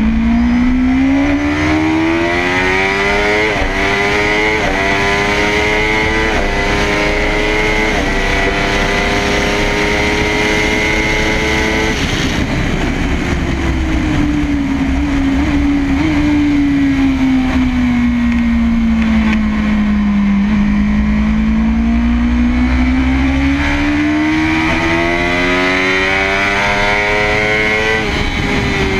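Kawasaki ZX-10RR's inline-four engine at full throttle on a racetrack. The pitch climbs and steps through several quick upshifts, then the throttle shuts about twelve seconds in and the note falls steadily under braking, before climbing hard again with another upshift near the end. Wind rushes over the fairing throughout.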